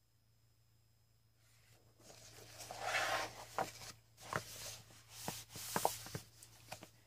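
Paper pages of a softcover coloring book being turned and handled: rustling with several sharp paper snaps, starting about two seconds in.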